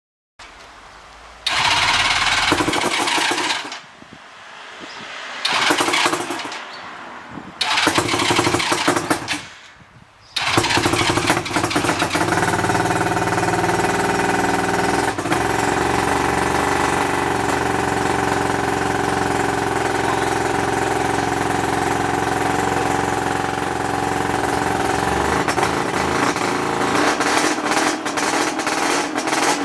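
1975 Suzuki GT550's two-stroke three-cylinder engine being started after restoration. It runs in three short bursts that each die away, then at about ten seconds it catches and keeps running steadily.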